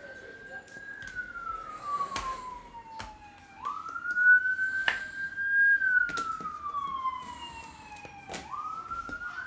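An emergency-vehicle siren wailing: each cycle rises quickly, holds briefly at the top and then falls slowly, about two full cycles with a third starting near the end. Sharp clicks of cards and plastic card holders being handled sound through it.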